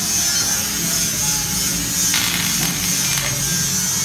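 Stick (SMAW) arc welding on a steel tube frame: the arc crackles and sizzles steadily, growing louder and rougher about two seconds in for a second or so.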